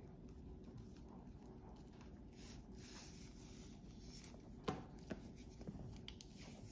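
Leather strap of a Coach Berkeley backpack sliding and rubbing against the bag as it is threaded through and pulled up, faint, with a few sharp clicks about two-thirds of the way in.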